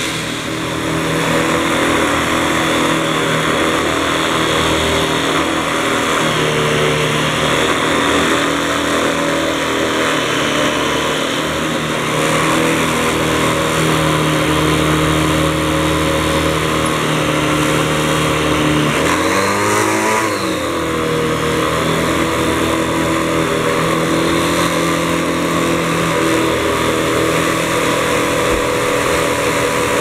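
Canister vacuum cleaner running steadily with a motor hum, its tone shifting as the nozzle is pushed over the carpet. About two-thirds of the way through, the motor pitch briefly swoops down and back up.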